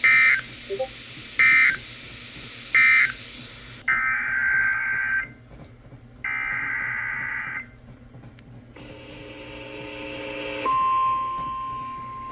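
Emergency Alert System data tones from a NOAA Weather Radio broadcast. First come three short screeching end-of-message bursts about a second and a half apart. Then come two longer header data bursts for the next alert and a rougher buzzing burst, and near the end the steady 1050 Hz weather-radio warning alarm tone begins and holds.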